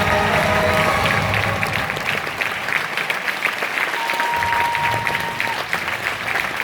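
Audience applauding, a dense steady clapping, with music fading out in the first second and a thin steady tone for about a second and a half near the middle.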